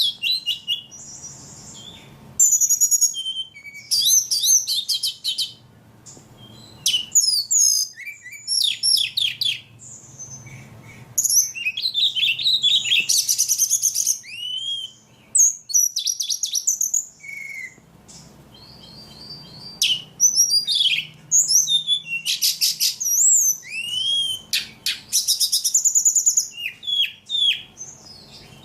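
Ledekan songbird singing energetically ('gacor'): rapid, varied phrases of high chirps, trills and sweeping whistles, delivered in bouts with short pauses between them.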